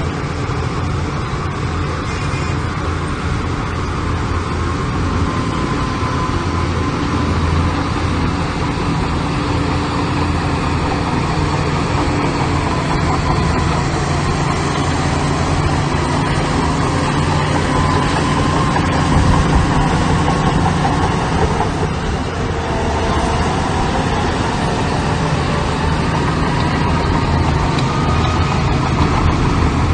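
Heavy diesel construction machinery running steadily under load, a low engine drone with a faint wavering whine above it.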